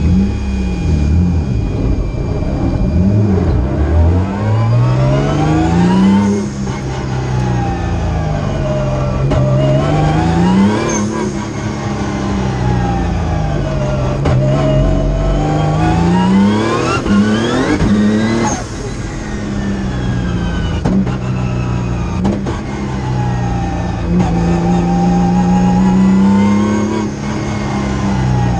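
Engine of a roughly 1000-horsepower Nissan March race car heard from inside the cabin, revving hard and falling back repeatedly as it is driven at speed. The pitch climbs several times, each climb ending in a sudden drop.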